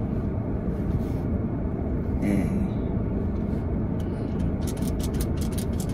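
Steady low hum inside a stationary car's cabin. From about four and a half seconds in, it is joined by a quick, irregular run of light clicks.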